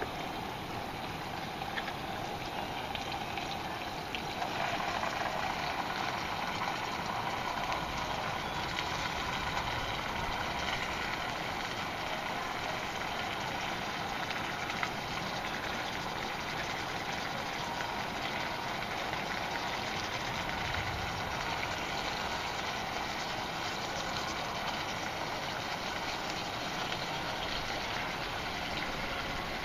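Campfire burning with scattered faint crackles and one sharper pop about halfway through, over a steady rushing noise that grows a little louder about four seconds in.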